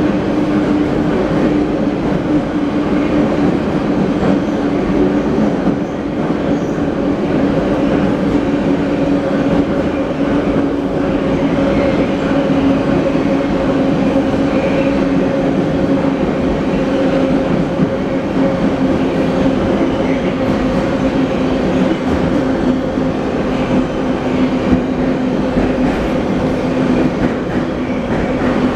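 Inside a moving 81-717.5 metro car in a tunnel: the loud, steady running noise of the train on the rails, with a steady two-note hum underneath that slowly drops a little in pitch.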